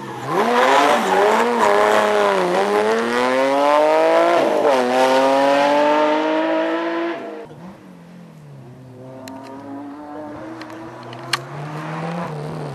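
Rally car engine revving hard as the car takes the bend close by, its pitch climbing, dipping and climbing again as the driver lifts and changes gear. After about seven seconds it drops away sharply and the engine carries on fainter in the distance, with a few sharp clicks near the end.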